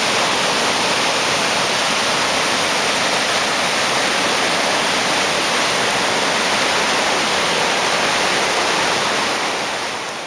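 Whitewater rapids rushing steadily over rocks, a loud, even rush of churning water that fades out near the end.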